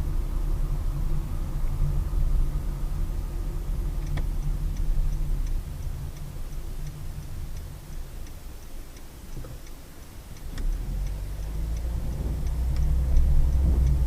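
Car driving, its engine and road noise heard from inside the car. The rumble eases off in the middle and builds again after about ten seconds, as the car slows and then pulls away. A faint, fast, regular ticking runs through the second half.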